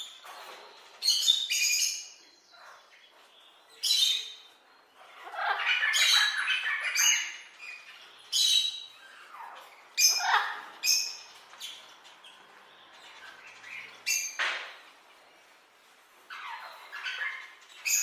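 Macaws squawking: a string of harsh, separate calls, one every second or two, with short quiet gaps between them.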